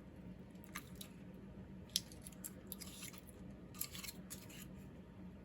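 Faint handling noise: scattered light clicks and rustles as resin model-kit parts and their packaging are unpacked, with a sharper click about two seconds in and a few more around four seconds, over a steady low hum.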